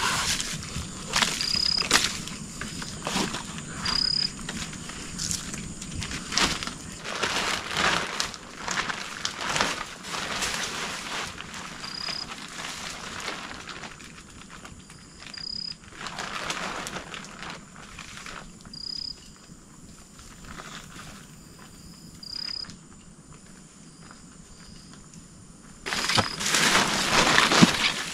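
Rustling and snapping of dry leaves and twigs, irregular clicks and crackles with a louder burst of rustling near the end. Short high chirps repeat every second or two in the background.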